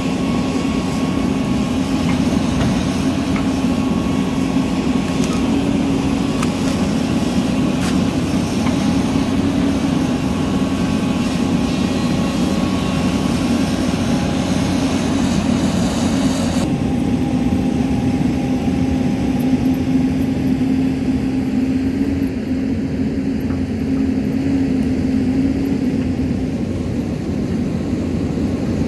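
A Hyundai Robex hydraulic excavator's diesel engine runs steadily close by, with a low hum and a fainter higher whine over it. About two-thirds of the way through, the sound turns suddenly duller.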